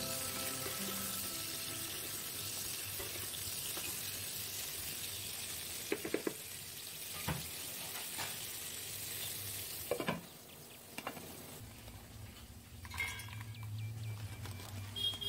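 Whole pointed gourds sizzling as they fry in oil in a wok, with a few sharp knocks of a spatula against the pan. The sizzle stops about two-thirds of the way in, and a few light clinks follow.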